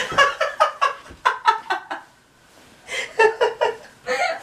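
A person laughing in quick repeated bursts, in two bouts with a short pause between.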